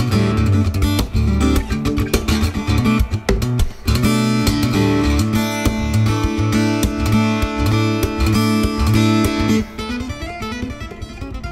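Background music: acoustic guitar picking and strumming over low held notes, turning quieter for the last couple of seconds.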